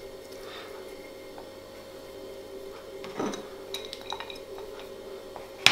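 A ceramic plate set down on a plastic cutting board, with julienned turnip sticks dropped onto it: a knock and then a few light clinks and taps, about three seconds in.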